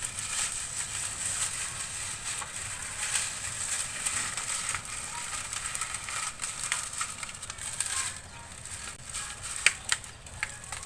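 Plastic bottles crinkling and crackling as they are handled, with a few sharp clicks near the end.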